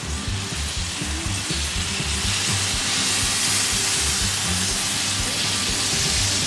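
Barbecue sauce sizzling and hissing as it is spooned onto chicken leg quarters and ribs on a hot grill, swelling louder about two seconds in.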